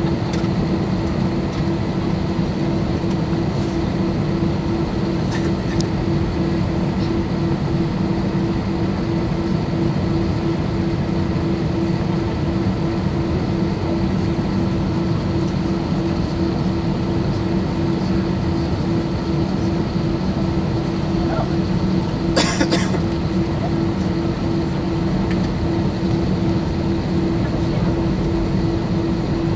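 Airbus A320 cabin noise while taxiing: a steady drone of the engines at low power, with a low hum and faint high whine tones. One brief knock sounds about 22 seconds in.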